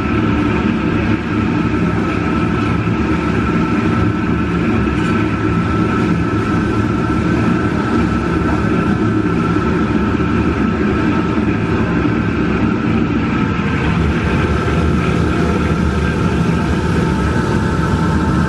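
Steady, loud mechanical drone of commercial kitchen equipment, with a few steady tones running through it.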